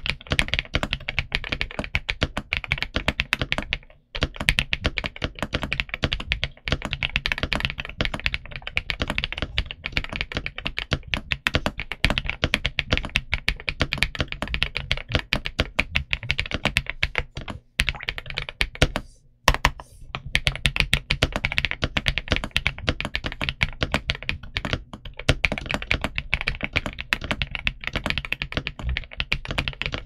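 Continuous typing on an AK820 Max mechanical keyboard with an FR4 plate, Avocado linear switches and dye-sub PBT Cherry-profile keycaps: a dense, fast run of keystrokes broken by a few short pauses, heard close up.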